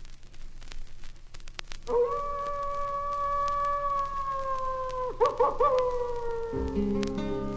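Vinyl record surface crackle and clicks, then a long wolf howl held on one pitch and sliding slightly down, breaking into a few quick wavers before falling away. Near the end, low music starts underneath.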